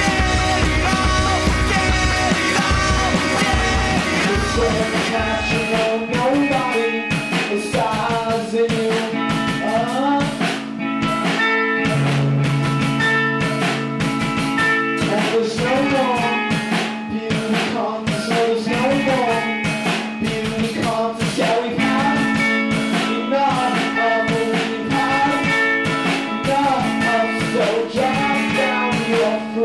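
Background music with a steady beat and melody lines that bend in pitch; the deep bass drops out about five seconds in.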